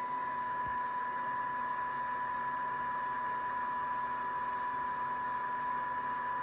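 Wood lathe motor running slowly, giving a steady high whine and hiss that does not change.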